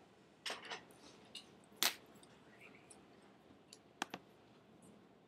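A handful of sharp clicks from a computer being operated, scattered irregularly, the loudest a little under two seconds in and a quick pair near the end.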